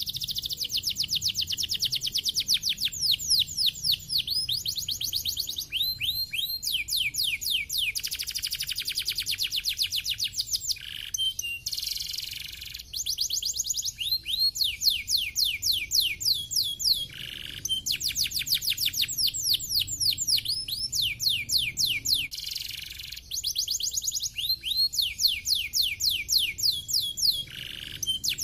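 Domestic canary singing a long song of fast trills: rolls of quick, repeated falling notes, some very dense and some slower, in phrases broken by short pauses.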